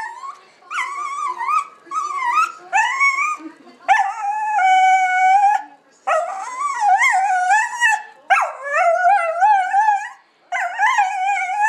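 Miniature pinscher 'talking': a series of high, wavering vocal calls whose pitch bends up and down, in about seven runs with short breaks. One call, about four seconds in, is held on a steady note for over a second.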